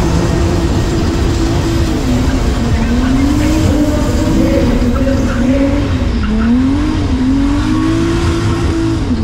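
2JZ straight-six drift car engine revving hard through a drift. Its pitch holds high, then dips and climbs again several times as the throttle is worked, over steady tyre noise.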